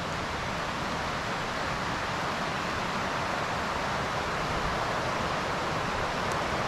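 Steady rushing of a nearby mountain creek, an even hiss of running water with no breaks.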